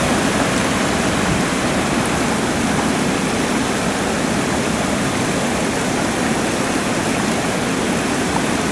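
Steady rush of water spilling over a low river weir.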